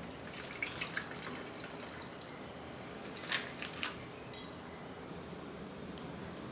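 The last of the milk pouring and dripping from a plastic milk packet into a non-stick kadai: a few short splashes and drips about a second in, and a few more sharp clicks around three to four seconds in, over a steady faint hiss.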